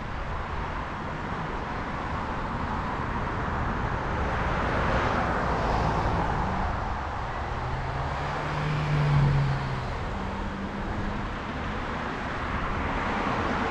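Road traffic passing, with the rush of cars swelling and fading. One vehicle with a low, steady engine hum passes loudest about nine seconds in.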